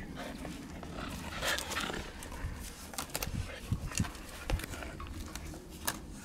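Keeshond playing tug-of-war with a frayed rope toy. There are irregular scuffs and clicks from the rope and paws, and a few short low dog noises in the middle.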